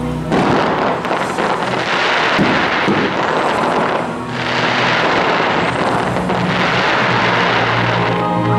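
Fireworks bursting in a dense run of crackling, in two waves with a short lull about four seconds in, over the show's accompanying music.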